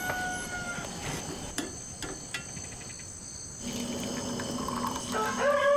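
Crickets and other night insects chirring steadily, with a few light knocks of kitchen utensils. Pitched music tones come in near the end.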